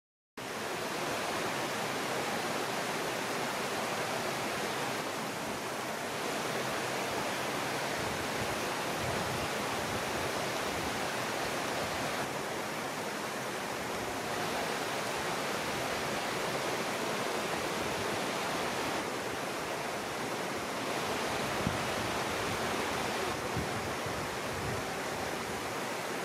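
A small stream running over rocks, a steady hiss of flowing water.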